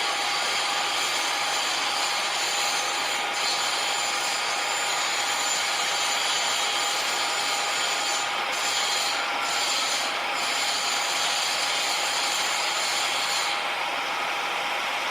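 Machinery workshop ambience: machines running continuously, a dense steady noise with a steady tone running through it. The highest hiss falls away near the end.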